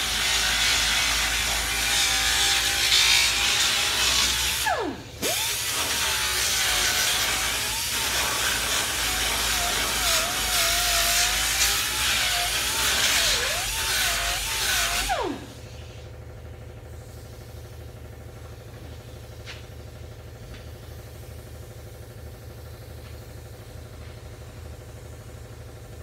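Angle grinder grinding the coating off the inside of a car's rear wheel well down to metal, its pitch wavering under load. About five seconds in it is briefly let off and spins back up. About fifteen seconds in it is switched off and winds down, leaving a steady low shop hum.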